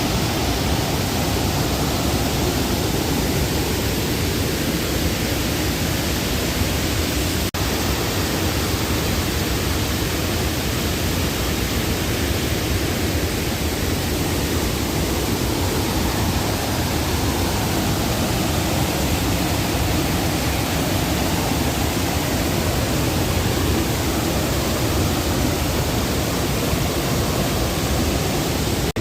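Waterfall rushing: a steady, loud, even roar of falling water that does not let up.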